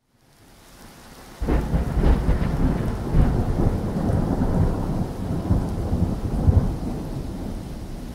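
A deep rumble over a steady hiss. It fades in from silence, comes in suddenly and loud about one and a half seconds in with a few sharper cracks, then slowly dies away.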